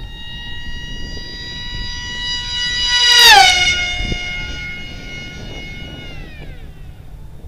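Electric motor and propeller whine of a ParkZone F-27C Stryker RC flying wing making a close, fast pass: it grows louder, peaks about three seconds in with a sharp drop in pitch as it goes by, then fades away.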